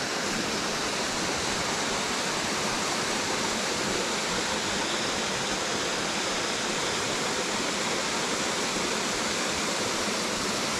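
Small mountain waterfall cascading over rock into a rocky creek: a steady, even rush of falling water.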